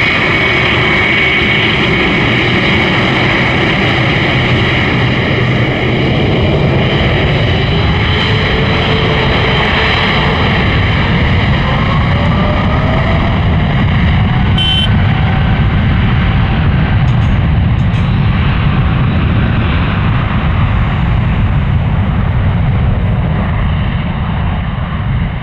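A Boeing 777-300ER's two GE90-115B turbofans at high thrust as the airliner rolls past on the runway: a loud, steady jet roar with a high fan whine over a deep rumble. It eases a little near the end as the aircraft moves away.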